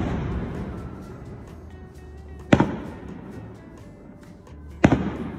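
Aerial firework shells bursting: two loud booms about two and a half and five seconds in, each echoing away over a couple of seconds, with the echo of an earlier boom dying out at the start.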